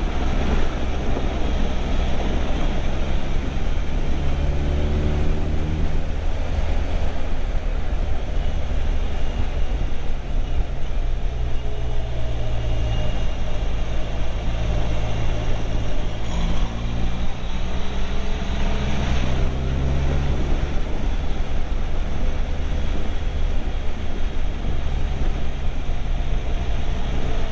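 Motorcycle engine running at road speed under wind and road noise. The engine note rises and falls a few times as the bike speeds up and eases off.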